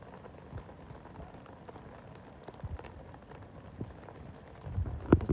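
Rain falling, with scattered drops ticking close by. Near the end a louder low rumble and one sharp knock rise above it.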